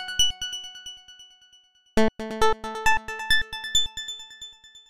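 Outro music jingle: a fast run of keyboard-like notes climbing in pitch, heard as the tail of one phrase at the start and again, after a short gap, as a second phrase about two seconds in that fades away near the end.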